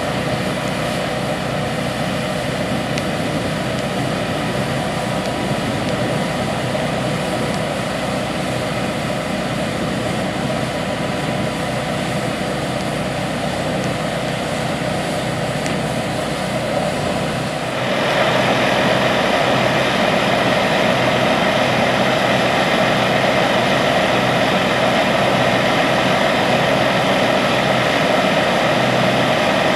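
Steady running of farm machinery engines and a seed tender's conveyor while wheat seed pours into the air drill cart's hopper. About 18 seconds in, the sound suddenly gets louder and brighter.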